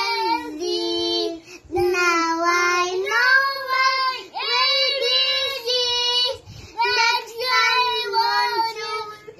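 Young children singing a song in high voices, with held and sliding notes and short breaks between phrases.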